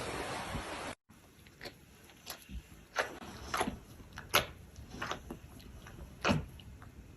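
Steady wind noise, then a cut to brief silence about a second in. After it, an animal makes a series of short sounds that drop in pitch, spaced irregularly a second or so apart.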